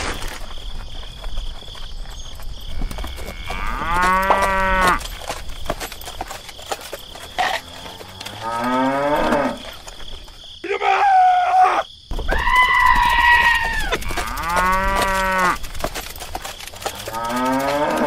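Cows mooing: about six long calls a few seconds apart, some sliding down or up in pitch.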